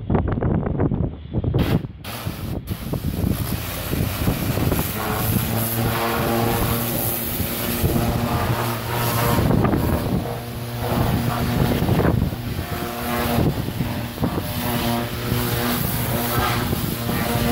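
Pressure-washer wand blasting water against a yacht's barnacle-fouled hull: a loud, dense spray hiss that starts about two seconds in and swells and dips as the jet moves. From about five seconds a steady engine hum runs underneath.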